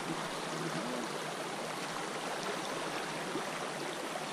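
Shallow river riffle running over stones: a steady rush of flowing water.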